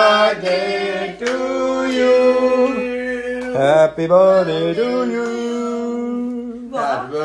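A voice singing a slow melody in long held notes, with a short break about three and a half seconds in.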